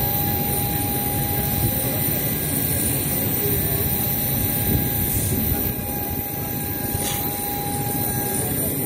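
Steady aircraft engine noise: a continuous low rumble with a constant whine running through it.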